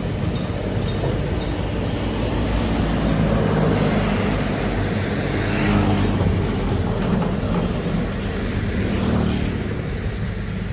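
Heavy machinery's large diesel engine running steadily under load.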